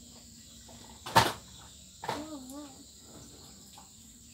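Steady high-pitched insect drone, with one sharp knock about a second in and a short wavering call about two seconds in.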